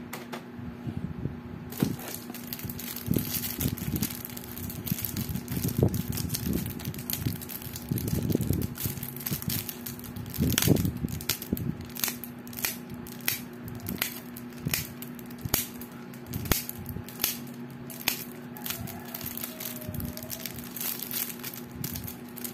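Plastic shrink-wrap on card decks crinkling and crackling as they are handled, with irregular rustles and clicks, over a steady low hum.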